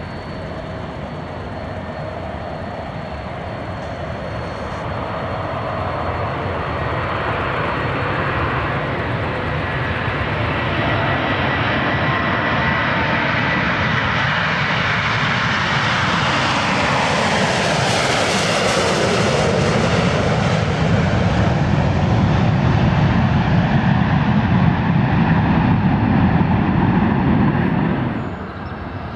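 Airbus A330-300's Rolls-Royce Trent 700 jet engines at takeoff power on the takeoff roll, growing steadily louder as the airliner approaches and sweeping past about two-thirds of the way through. The sound cuts off abruptly near the end.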